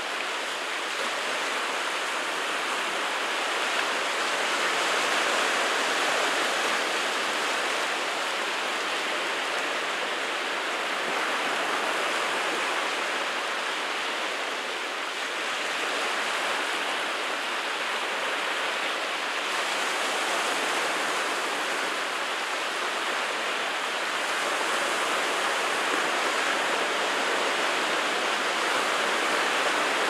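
Small sea waves washing in over a rocky, stone-strewn shore: a steady rush of surf that swells and eases gently, dipping briefly about halfway through.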